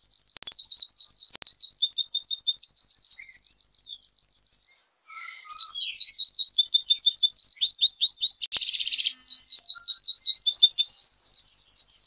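A small songbird singing a long, high-pitched song of fast repeated trills, changing from one trill to the next, with a short break about five seconds in.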